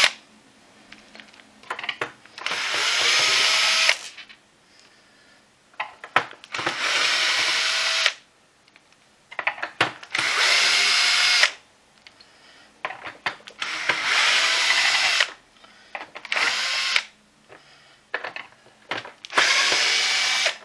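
12-volt cordless drill-driver run in short bursts of one to two seconds, about six times, backing screws out of a vacuum cleaner floor head's plastic housing. Each run rises in pitch as the motor spins up, and there are small clicks between the runs.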